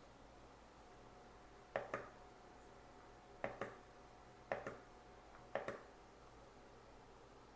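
Four sharp double clicks, spaced about a second apart, each made of two quick clicks a fifth of a second apart, over a faint steady hum.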